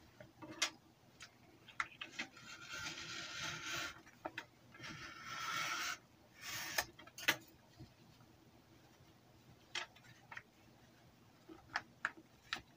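Glossy advertising-brochure paper rustling and sliding as hands handle and flatten it, in a few stretches of a second or two, with scattered light taps and clicks of paper on the table.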